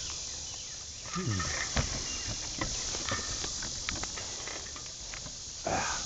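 Steady buzzing of insects in the undergrowth, with scattered crackles and rustles of leaves and twigs as someone moves through the brush.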